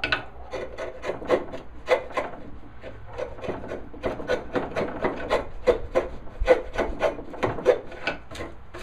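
Sharp hand chisel paring waste out of a dado in walnut: a run of short, irregular scraping cuts, about three or four strokes a second.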